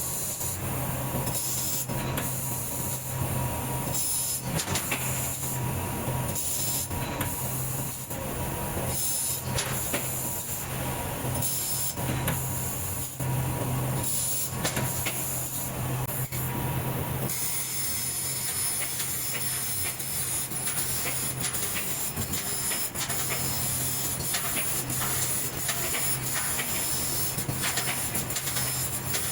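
3000 W fiber laser cutting machine at work on thick steel plate: a steady hiss and low hum with frequent short crackles and clicks. The sound changes abruptly a little over halfway through, losing the hum.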